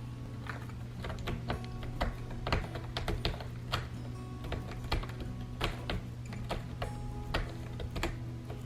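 Cat claws clicking and scraping irregularly on a corrugated cardboard scratcher lounge, over soft background music.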